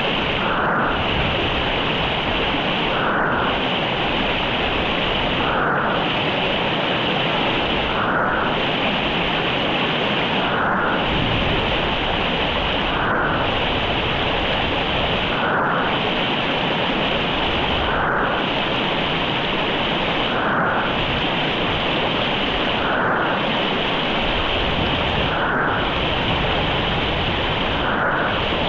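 Mountain river rushing steadily over rocks, a dense even hiss of running water, with a slight shift in tone repeating about every two and a half seconds.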